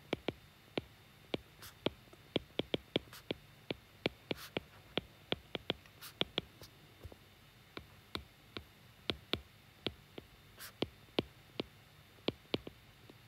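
Stylus tip tapping and clicking on a tablet's glass screen during handwriting: irregular sharp taps, about three or four a second, as each stroke and letter is written.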